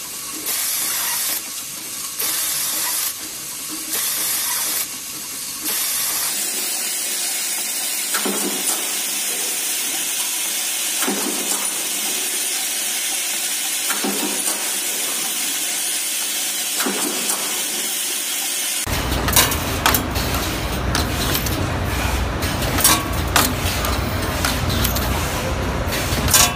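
Automated metalworking machines in three short runs: first hissing bursts about a second long, repeating a little over once a second; then a steady hiss with a light knock about every three seconds as a small press cycles; then, from about two-thirds of the way in, a wire ring-forming machine running with a low hum and rapid sharp clicks.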